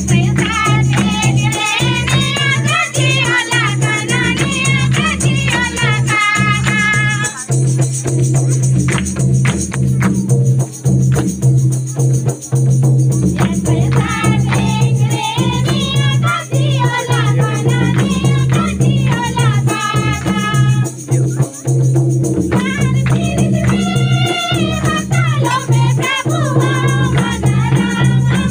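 Men and women of a church group singing a Mundari Christian bhajan together, accompanied by a two-headed barrel drum (mandar) and hand percussion. The singing breaks off twice for a few seconds while the drum keeps playing, then resumes.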